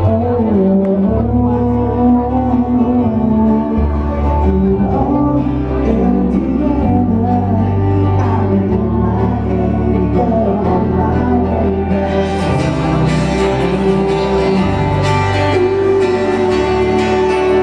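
Live pop band playing: a male singer over guitar, bass and drums, loud and heard from the audience. The sound grows brighter about two-thirds of the way through.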